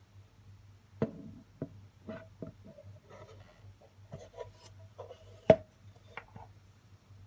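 Handling noise: a series of knocks and clicks with short rubbing scrapes on a hard surface, the loudest a sharp knock about five and a half seconds in, over a low steady hum.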